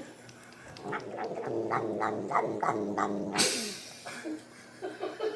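A cat making a rhythmic, pitched 'nom nom' vocal sound while chewing food, with clicks from the chewing about three a second. A brief noisy swish comes about three and a half seconds in, and the chewing sounds pick up again near the end.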